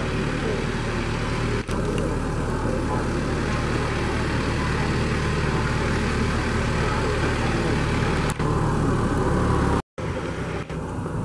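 John Deere 4044M compact tractor's diesel engine running steadily while it tows a utility trailer. The sound cuts out for an instant near the end.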